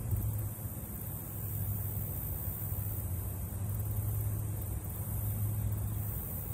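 Steady outdoor background noise: a low rumble with a constant high hiss and no distinct events.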